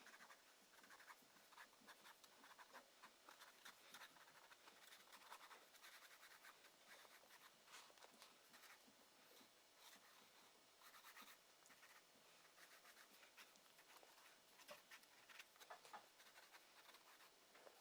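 Faint, irregular scratching of a drawing tool stroking across paper, a few short strokes at a time with small pauses between.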